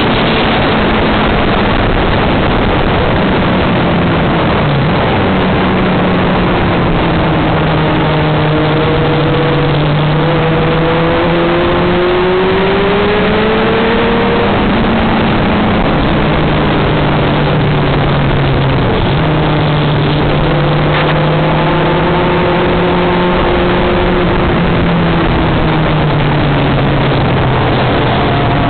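Motorcycle engine running at road speed under heavy wind rush on the microphone, its pitch drifting up and down with the throttle and climbing about halfway through.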